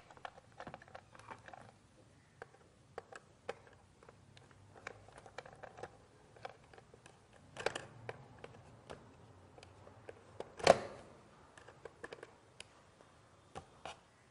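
Scattered light clicks and taps of hands handling wire and the small screw terminals of switch fittings on a wooden wiring board, with two louder knocks about eight and eleven seconds in.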